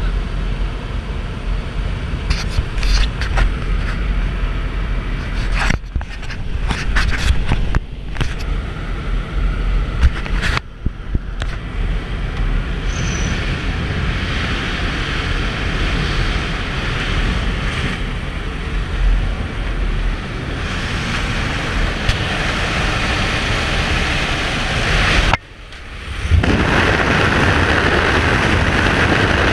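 Jump plane's engine and rushing air through the open door, with scattered knocks and rustles as skydivers shuffle toward the exit. Near the end the sound briefly drops out, then a louder, steady rush of freefall wind takes over as the jumper leaves the plane.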